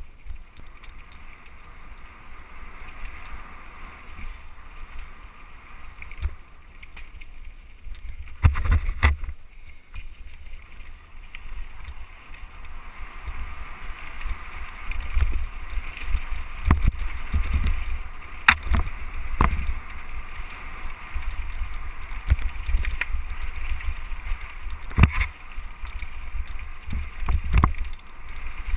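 Mountain bike ridden fast over a dirt trail covered in dry leaves: tyres rolling through leaves and dirt, with a heavy low rumble of wind and vibration on the microphone and sharp knocks and rattles from the bike as it hits bumps.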